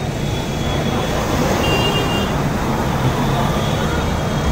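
Steady, loud road traffic on a waterlogged street: car and motorbike engines running close by in slow, packed traffic.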